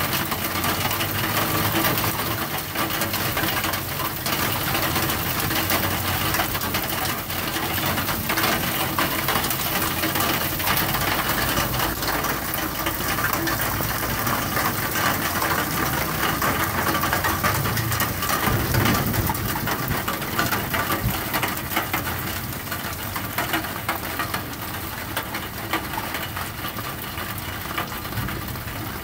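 Heavy rain mixed with hail falling on a wooden deck, railing and yard: a dense, steady patter of many small impacts, easing a little in the last several seconds.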